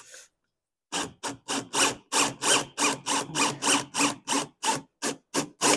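DeWalt cordless drill driving a wood screw into a board, its motor running in short bursts of about three or four a second after a brief pause.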